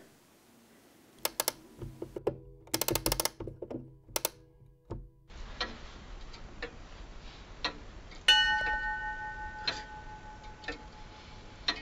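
A run of sharp mechanical clicks and knocks, sparse and irregular, with a single bright ringing chime about eight seconds in that dies away over a few seconds.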